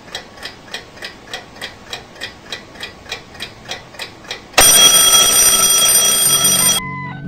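Alarm clock ticking steadily, about three ticks a second, then its alarm goes off with a loud, high ringing for about two seconds that cuts off suddenly. Music begins near the end.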